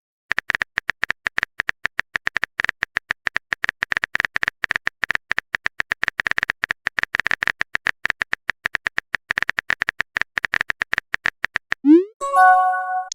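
Phone keyboard typing sound effect: a long run of rapid tapping clicks. Near the end it gives way to a short rising swoosh and a chime-like message tone.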